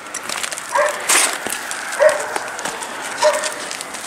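A dog barking, three short barks about a second apart. About a second in there is a brief crackle of masking tape being pulled off.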